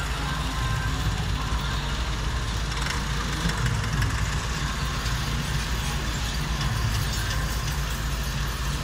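Steady diesel engine rumble: a Volvo EW145B wheeled excavator idling with its boom held still, and a farm tractor under load pulling a trolley full of earth.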